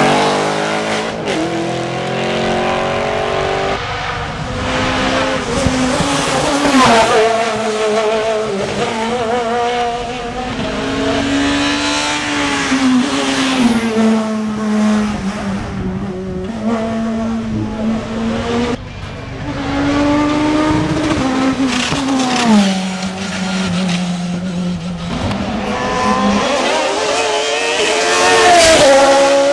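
Hill-climb racing car engine at high revs, its pitch climbing and then dropping again and again as the driver shifts gears and lifts for corners.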